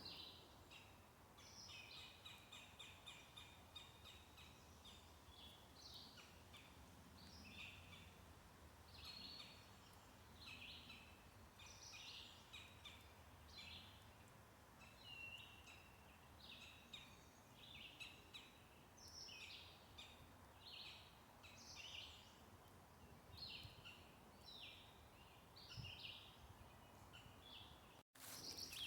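Faint birdsong: short, high chirps repeating about once a second.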